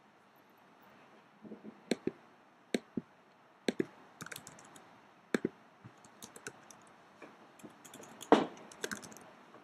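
Typing on a computer keyboard: irregular key clicks, a few at a time, with the loudest run of keystrokes about eight seconds in.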